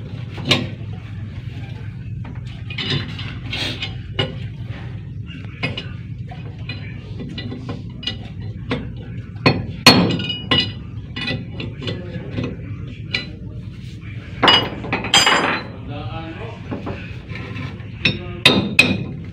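Hammer striking a steel drift to drive a bushing into a cast-iron radiator pump housing: irregular metal-on-metal blows, the loudest about ten seconds in and again near the end.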